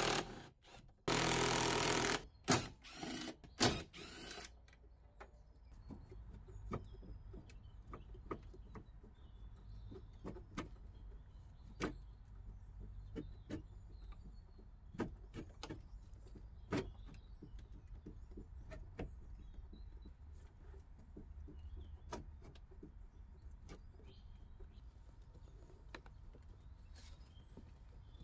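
A cordless power driver runs for about a second, then in a few short bursts, backing out fasteners on a car's front end. After that come scattered clicks and knocks of the plastic headlight and bumper being worked loose by hand.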